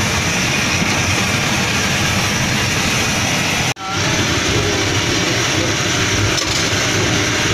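Loud, steady drone of a train power van's diesel generator, a constant low rumble under a hiss, heard from the kitchen inside the van. It drops out for a moment a little past halfway.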